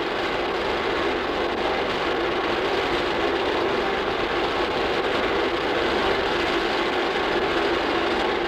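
Electric-motor-driven oil pumps of a hydraulic pumping station running with a steady mechanical hum. They supply pressure to the hydraulic loading actuators of an aircraft test rig.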